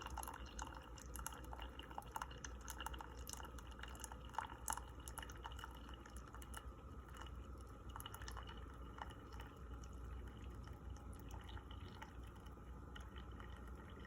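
Instant Pot K-Pod single-serve coffee maker brewing, coffee dripping and trickling into the cup, faint. The drips come thicker in the first half and thin out later.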